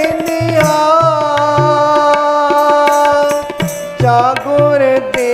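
Devotional kirtan music: harmoniums and tabla under a singer who holds one long note for about three and a half seconds before the melody moves on. The tabla keeps a steady rhythm with deep bass-drum booms.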